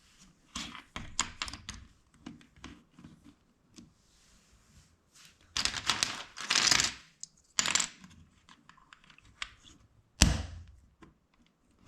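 LEGO plastic bricks clicking and rattling as they are handled and pressed together, with a rustling stretch of pieces shuffled about halfway through and one louder knock near the end.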